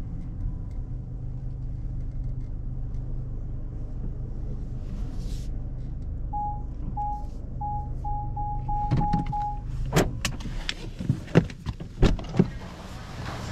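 A car's parking-sensor beep repeating faster and faster, the sign of the car closing in on an obstacle, over the low hum of a 2022 Mazda3's 2.0-litre SKYACTIV-G engine creeping along. About three seconds later comes a run of sharp clicks and knocks inside the car.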